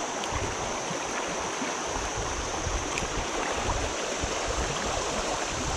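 Shallow river riffle rushing steadily, a continuous wash of water noise with an uneven low rumble underneath.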